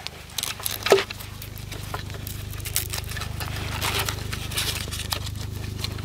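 Soft rustling and small clicks from a strap being threaded through a loop on a knife sheath, over a steady low hum.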